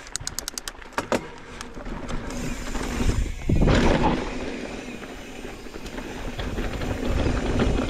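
Mountain bike rolling down a dirt trail: tyres crunching over loose dirt and rock, with wind on the microphone. A quick run of clicks comes near the start, and the noise swells about three and a half seconds in.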